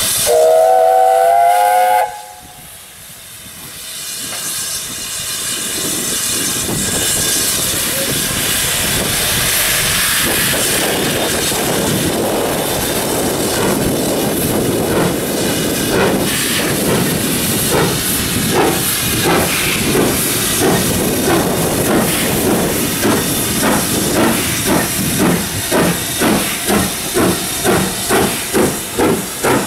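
A steam locomotive's whistle sounds for about two seconds. Then the locomotive starts away with a steady hiss of steam, and rhythmic exhaust beats come in and quicken to about two a second near the end.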